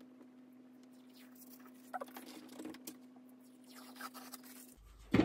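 Old wallpaper being scraped and peeled off a wall by hand: faint, irregular scratching and rustling over a steady low hum, with a sharper knock right at the end.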